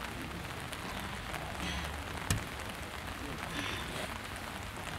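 Steady hiss of outdoor noise with one sharp knock a little over two seconds in.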